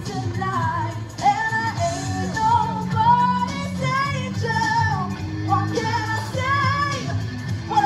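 Women's voices singing a melodic vocal line over loud pop-rock backing music, from a costumed witches' stage show.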